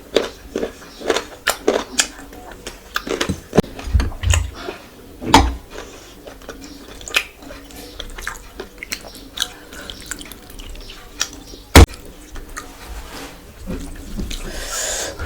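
Close-miked eating sounds: irregular wet chewing, smacks and clicks of someone eating a spicy curry meal, with one sharp knock about twelve seconds in.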